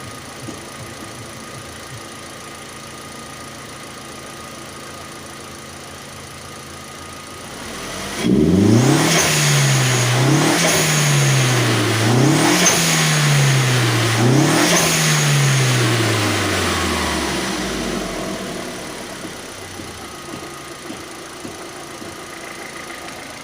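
SEAT León Mk1's 1.8-litre 20-valve turbo four-cylinder idling, then revved four times about two seconds apart and dropping back to idle. Each throttle release brings the stock HKS SSQV4 blow-off valve's psh, ending in a funny little whistle made by the valve's inner insert.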